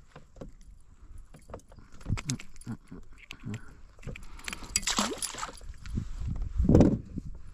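Handling noises aboard a plastic fishing kayak as a hooked shad is brought in at the side: scattered clicks and knocks, a louder splashy rush at about four and a half seconds, and a heavy thump against the hull near the end.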